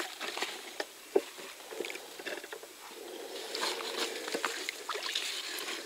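Small splashes, drips and sloshing of shallow water with scattered sharp clicks, as a carp landing net is worked in the water to let a carp swim free.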